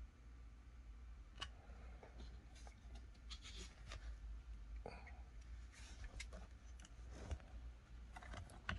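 Faint handling noise from a Glock pistol and its magazines being touched and lifted in a hard plastic case: scattered soft clicks, taps and brief rubbing over a low steady hum.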